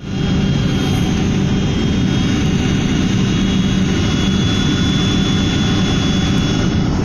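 Boeing 767 cabin noise on the landing approach: the steady roar of the jet engines and airflow heard from a window seat, with a faint thin high whine over it.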